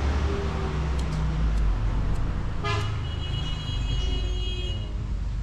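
A steady low rumble of a road vehicle, with a short horn toot about two and a half seconds in, followed by a thin high tone lasting a couple of seconds.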